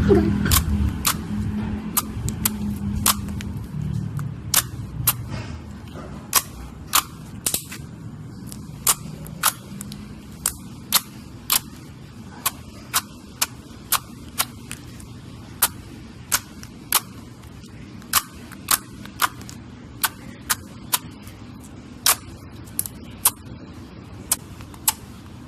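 Slime being squeezed and poked, giving sharp irregular popping clicks about one or two a second, over a low rumble that fades out in the first few seconds.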